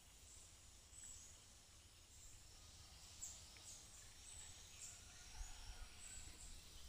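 Near silence: faint outdoor ambience of a steady high insect hiss, with a few short, faint high chirps. A low rumble rises in the second half.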